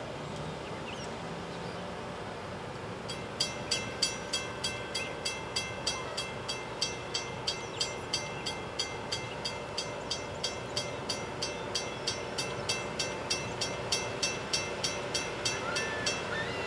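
A railroad grade-crossing warning bell ringing about three strikes a second. It starts about three seconds in and stops just before the end, over the steady low rumble of the approaching Loram rail grinder train.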